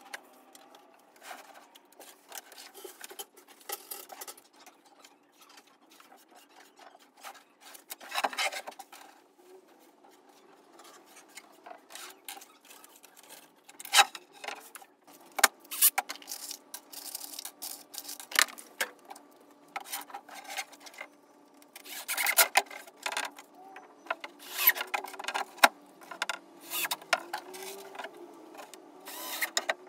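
Plywood being worked by hand: irregular rubbing and scraping strokes, with scattered sharp knocks and clicks.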